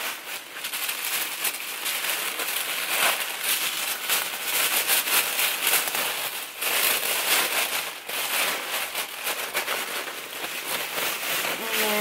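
Tissue paper crinkling and rustling as it is pulled away from a wrapped handbag by hand, a continuous dense crackle.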